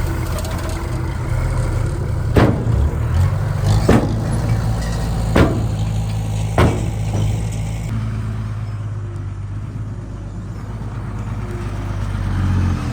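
Heavy diesel earthmoving machine running steadily, with four sharp metallic clanks a second or so apart in the first half.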